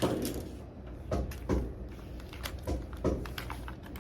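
A keyboard being handled on a desk: a few scattered knocks and clicks, about half a dozen over the few seconds.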